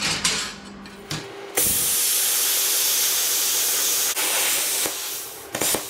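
Hand-held plasma cutter cutting a small tab out of sheet steel, a loud steady hiss. A few short clicks and puffs come first, the cut starts about a second and a half in, dips briefly about four seconds in, and cuts off near the end.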